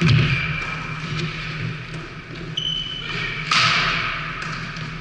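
Volleyball struck hard at the net in a spike and block, a sharp hit that echoes through a large sports hall, with another loud hit a little over three seconds in.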